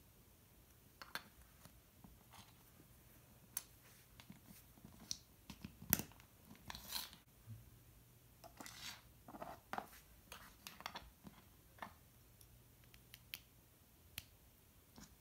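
Plastic Lego bricks clicking and scraping as they are handled, pressed together and set down on a wooden tabletop: scattered small clicks, the loudest about six seconds in, with short rubbing sounds around seven and nine seconds.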